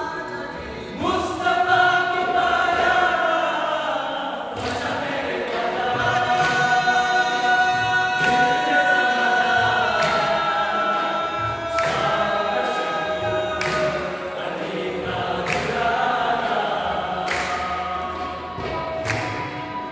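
Male choir singing a Sufi devotional song in Urdu, with long held notes. Steady handclaps about once a second join in about four and a half seconds in.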